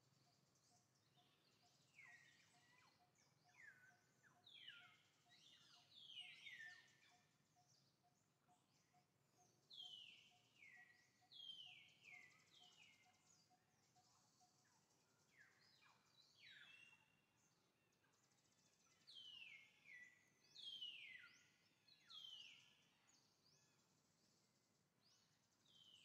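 Faint, high-pitched animal calls, each sliding down in pitch, coming in short runs every few seconds. A faint, evenly pulsing tone sounds under them and stops about halfway through.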